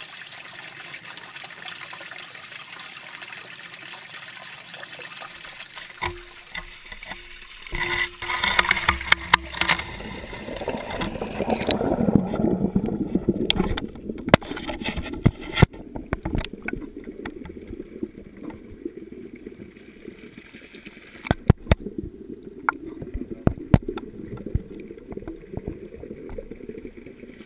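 Water trickling and gurgling in an aquaponics fish tank. Scattered knocks and handling noises begin about six seconds in.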